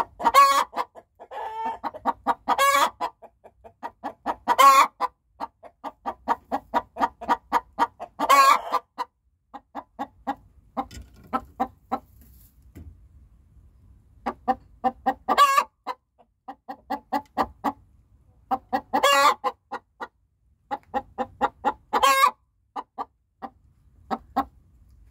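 Pullet's egg song, a hen's laying cackle: runs of quick clucks, each building into a loud drawn-out squawk. This happens seven times, with a quieter spell of scattered clucks midway.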